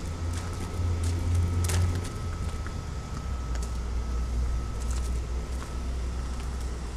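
Kubota SQ3170 diesel generator running steadily on its three-cylinder Kubota D1703 engine, governed at 1800 rpm: a low drone with a faint steady whine above it and a few light clicks.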